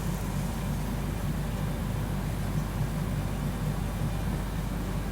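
Blower fan and two pumps of a gold-refining fume-filter unit running together: a steady low hum under an even hiss, unchanging.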